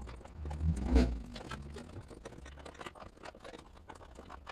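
Hands and tools working a silicone hose onto its pipe in an engine bay: scattered clicks and rustles, with a dull thump about a second in.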